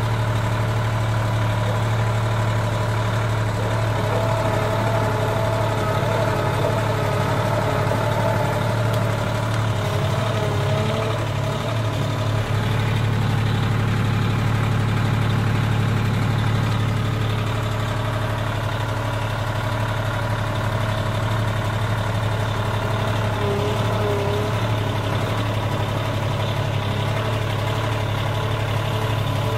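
Tractor engine idling steadily with a low, even hum.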